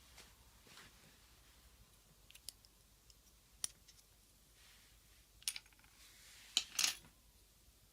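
Keys of a Keychron V6 Max mechanical keyboard with Gateron Brown tactile switches being pressed: a few scattered clicks rather than steady typing, the loudest cluster near the end.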